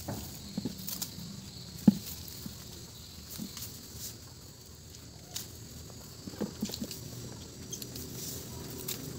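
Irregular rustling, clicks and light knocks from hand work: lemongrass stalks being stripped and trimmed with a small knife, and galangal rhizomes being handled at a bucket. One sharper knock comes about two seconds in, and a few quick knocks follow near six and a half seconds.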